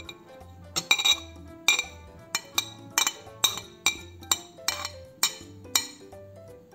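Metal spoon tapping and scraping against a plate, about a dozen sharp clinks roughly two a second, as chopped dill is knocked off into a bowl. Background music plays underneath.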